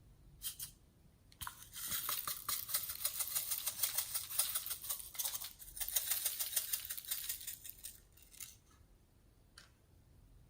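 Slime being squished and worked by hand, with a dense run of fine crackles and pops from about a second and a half in until about eight seconds in. A few single clicks come before and after the run.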